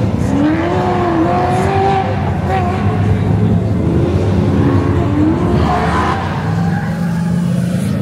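Car running an autocross cone course, its engine revving up and falling back repeatedly as it accelerates and slows through the course.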